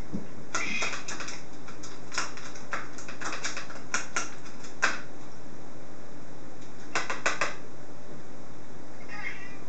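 Sharp clicks and taps in irregular short runs, the loudest about five seconds in. After a gap of about two seconds comes a last quick run of three.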